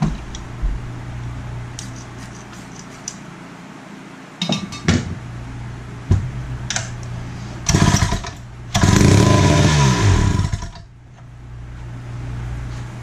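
Wright B-520 reciprocating saw's 115 cc two-stroke engine being pull-started: several rasping pulls on the recoil starter, then it fires and runs for about two seconds, falling in pitch as it dies.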